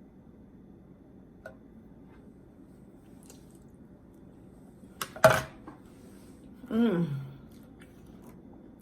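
A utensil clatters sharply on a plate about five seconds in, after a faint click earlier on. A short hum falling in pitch follows about a second and a half later.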